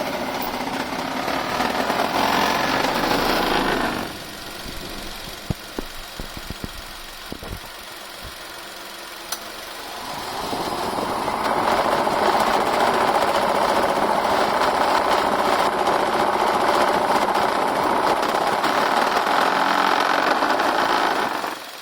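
Nissan Latio's electric radiator cooling fan running with a rattling, vibrating noise: its motor has developed play. The fan stops about four seconds in, a few knocks follow, then it spins up again around ten seconds and runs loud until it cuts off near the end.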